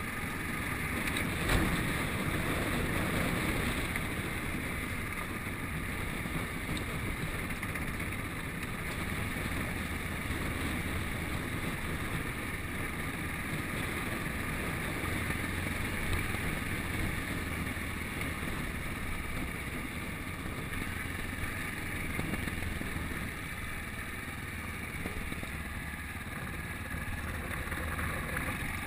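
Yamaha XT660Z Ténéré's single-cylinder engine running at a steady cruise, heard from the bike itself, with wind on the microphone and tyre noise. There is a single sharp knock about a second and a half in.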